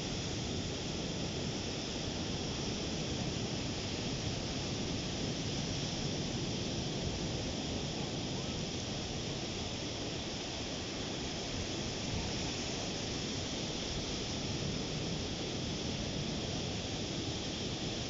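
Ocean surf: waves breaking offshore and washing up a sandy beach, heard as a steady rushing noise.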